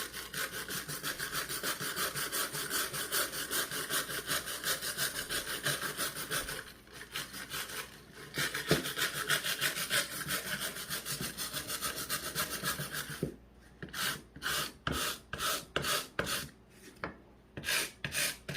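Wire brush scrubbed back and forth over torch-charred wood, cleaning the burnt surface off, in quick even strokes of about three or four a second. There is a short break about seven seconds in, and about thirteen seconds in the strokes become slower and separate, about two a second.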